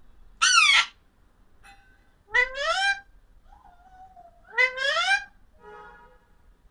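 Parrot giving three loud calls about two seconds apart, each under a second long and rising in pitch, with softer, quieter calls between them.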